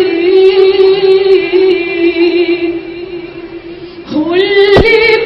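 A woman's solo singing voice holding one long note with a slight waver, easing off about three seconds in, then sliding upward into a new phrase near the end.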